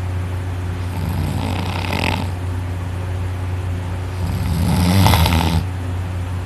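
Heavy snoring of a person deeply asleep after heavy drinking, lying flat on her back, with the soft palate and uvula vibrating. A lighter breath comes about a second in, then one long, loud, rattling snore about four seconds in, over a steady low hum.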